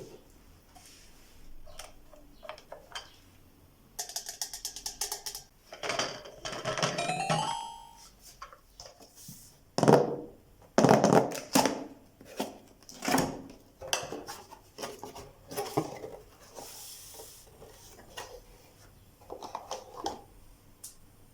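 Hands tapping and handling kitchen gadgets and their packaging: scattered taps, knocks and rustles, with a quick run of ticks and, around 7 s, a short series of pitched tones stepping upward.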